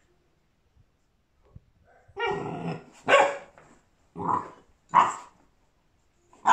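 English Mastiff puppy barking: four barks about a second apart starting about two seconds in, the first longer and growly.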